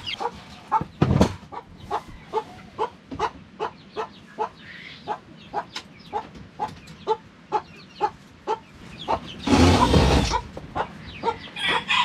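Chickens clucking, short calls repeating about two or three times a second. Just before the end comes a brief, louder rustling noise.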